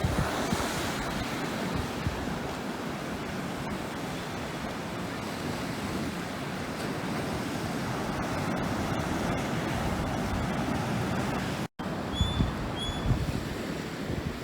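Ocean surf washing steadily onto the beach, an even rushing noise. Near the end, after a brief cut, wind buffets the microphone and two short high chirps sound.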